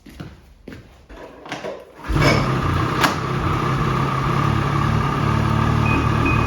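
A few faint knocks, then a loud, steady mechanical hum that starts abruptly about two seconds in and holds an even pitch, with one sharp click about a second after it starts.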